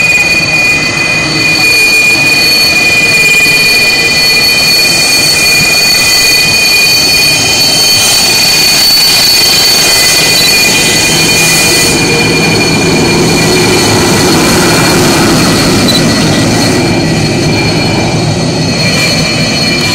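Sukhoi Su-27 fighter's twin AL-31F turbofan engines running at taxi power as the jet rolls past: a loud, steady whine of several high tones over a jet rumble that swells in the second half.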